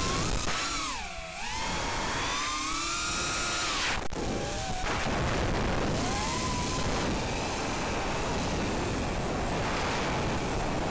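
FPV quadcopter's brushless motors and propellers whining, the pitch sweeping up and down with the throttle and dropping sharply about a second in, over wind rush on the onboard camera's microphone. A brief click about four seconds in.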